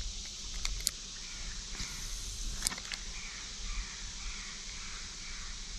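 A steady, high-pitched insect chorus, with a few sharp clicks within the first second and once more near the middle.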